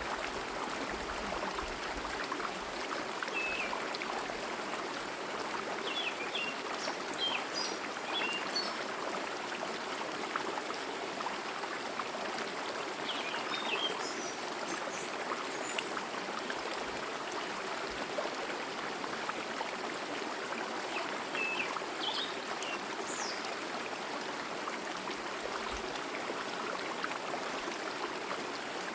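Forest stream flowing and splashing steadily over rocks, with short high bird chirps breaking in now and then.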